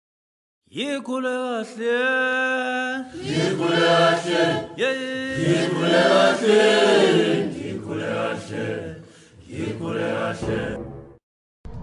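Chanting voices singing long held, wavering notes, starting just under a second in and breaking off shortly before the end.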